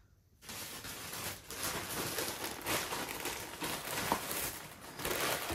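Plastic packaging crinkling and rustling as it is handled and unwrapped, with a few small sharp crackles.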